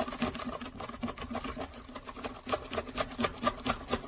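A lock pick scraping and clicking against the pins inside a Master Lock padlock's keyway as it is raked up and down under tension: a quick run of small clicks that thins out about a second in, then picks up again.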